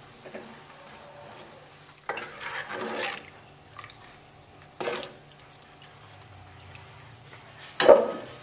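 A metal skimmer scooping fried sesame balls out of a wok of hot oil: the oil swishes and sizzles faintly, and the metal scrapes against the wok. A short knock comes midway and a louder one near the end.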